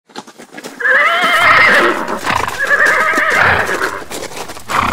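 A horse whinnying twice: two long, wavering calls, each about a second, over a scatter of short clicks.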